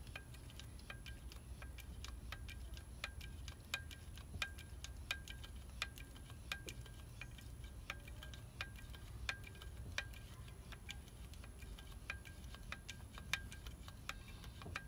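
Lever-action grease gun being pumped, its handle clicking with a short metallic ring about one and a half times a second as grease goes into the excavator's track adjuster cylinder to push the piston out and tighten the track.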